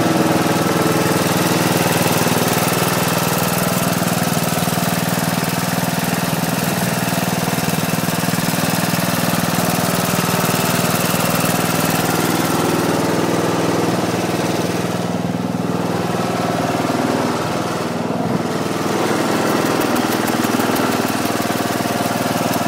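Tractor engine running steadily, with a brief dip in loudness about three quarters of the way through.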